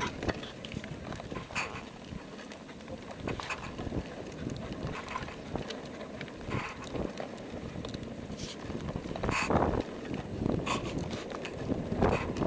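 Wind noise on the microphone of a camera fixed to a moving bicycle, with irregular knocks and rattles from the bike.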